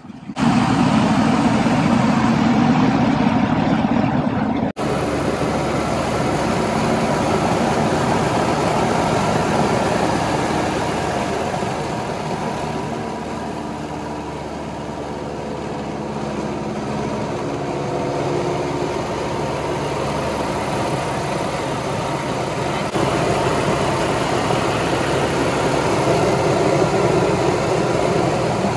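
Cabin noise of a 1946 Cessna 140 in flight: its small four-cylinder piston engine and propeller running steadily with wind rush. There is a brief break about five seconds in.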